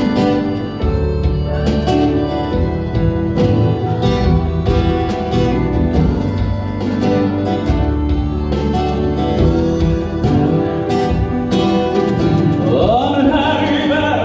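Music: an instrumental break of a live song with guitar and a steady beat. A singer's voice comes in near the end.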